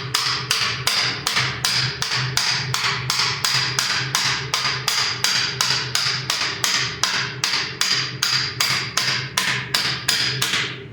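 Hammer striking steel in rapid, even blows, about three a second, each with a short metallic ring, driving a Subaru Forester's rear wheel hub assembly out of its steering knuckle.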